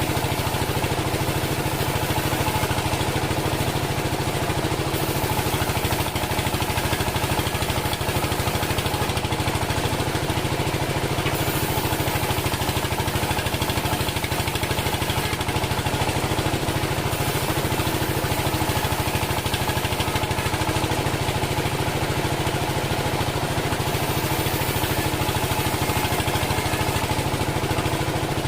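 Engine of a homemade band sawmill running steadily at a constant speed.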